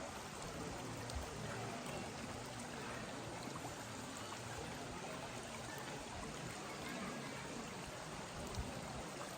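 Steady rush of flowing water, like a stream, with no distinct events.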